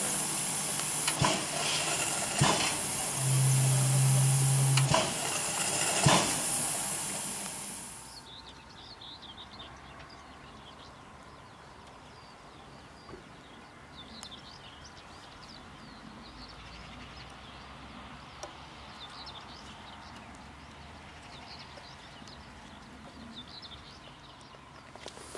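ČSD class 477.0 steam locomotive hissing loudly as steam vents from its cylinder drain cocks, with a few sharp clicks and a low steady hum for about a second and a half. After about eight seconds the sound cuts to a much quieter open-air background of birds chirping over a faint distant train.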